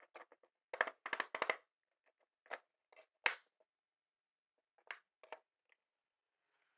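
Handling noise from a homemade router lift: its plywood and MDF parts knock and clatter against the steel guide rods and the bench. A quick run of knocks comes about a second in, then a few single sharp knocks spaced through the rest.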